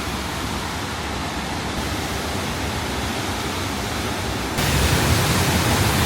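Steady, even rush of a waterfall's falling water, stepping up louder about four and a half seconds in.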